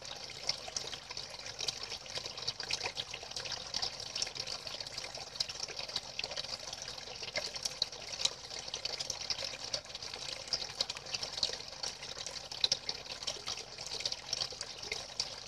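Thin streams of water pouring steadily onto a still water surface: an even splashing and trickling, with many small sharp splash ticks.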